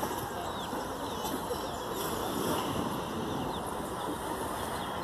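Steady outdoor rushing noise with small birds giving faint, short, high chirps now and then.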